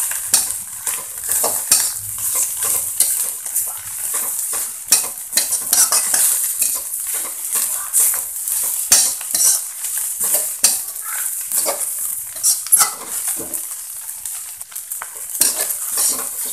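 Shredded cabbage and mustard greens being stir-fried in a wok: a metal spoon scrapes and knocks against the pan in quick, irregular strokes over a steady sizzle of hot oil.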